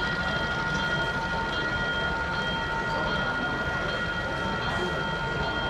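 Model train of tank cars running along the layout track: a steady rolling rumble with a constant high whine over it.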